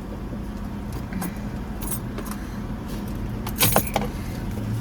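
Car engine idling with a steady low hum, heard from inside the car, over which small metal objects jingle and clink a few times, the loudest cluster a little before the end.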